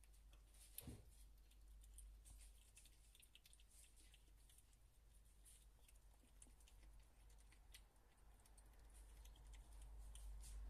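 Near silence: faint, irregular small clicks and ticks over a low steady hum, with one slightly louder click about a second in.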